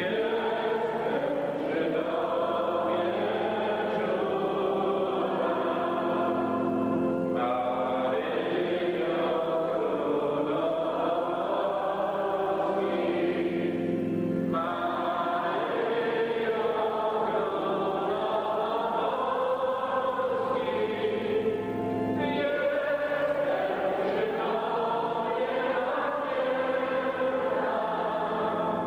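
A group of voices singing a religious hymn in long sustained phrases.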